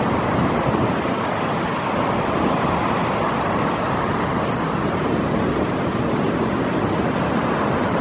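Heavy ocean surf: large waves breaking and washing over a rock pool's wall, a steady rushing noise without let-up.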